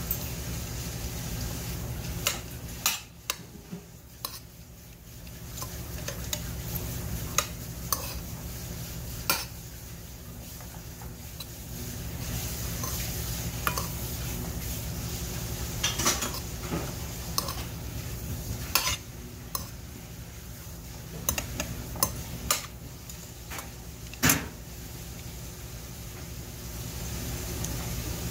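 A metal spoon stirring and mixing barley bibimbap in a stainless steel bowl, with frequent irregular sharp clinks of the spoon against the bowl over a steady low hum.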